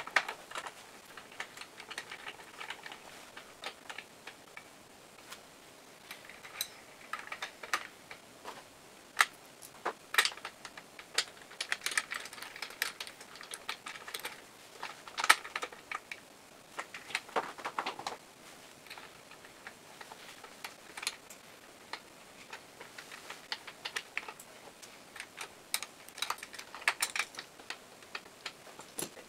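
Steel rope guide ring and its special compression tool on a Demag P wire rope hoist drum: irregular light metal clicks and taps with short bits of scraping, as the tool draws the ring's two ends together.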